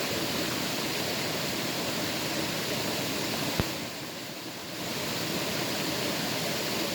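Steady rush of running water. A sharp click comes about three and a half seconds in, and the rush briefly drops for about a second just after.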